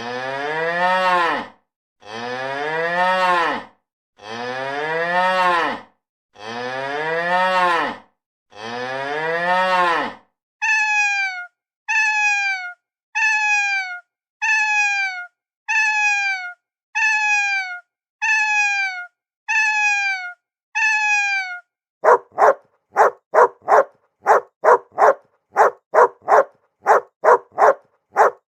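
A cow mooing five times, each moo long and rising then falling. Then a cat meowing ten times, about once a second. Then a small dog yapping quickly, about two yaps a second.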